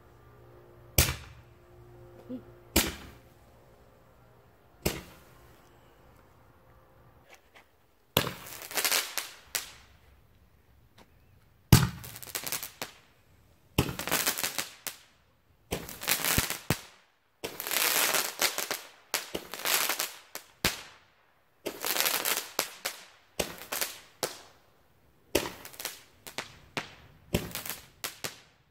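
10-ball Roman candles firing ball after ball: a few sharp single pops a couple of seconds apart, then from about eight seconds in a steady run of shots, each a sharp pop trailed by a hiss, about one a second.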